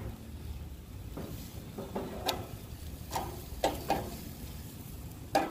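Metal grill tongs clicking and clacking against the grate and skewers while vegetable skewers are turned over, about eight sharp irregular clicks over a low steady hum.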